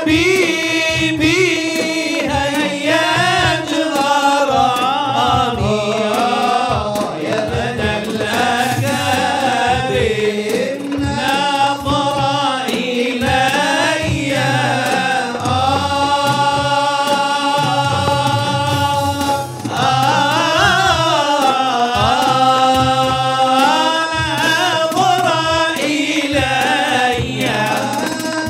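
A man singing an Arabic devotional qasidah in a melismatic, ornamented style, with a long held note about halfway through, over a steady beat of hand-struck frame drums.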